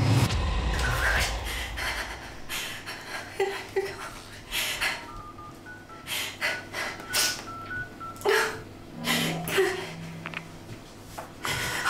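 Horror-film sound design: a low hit at the start, then irregular glitchy static crackles with short electronic beeps in the middle.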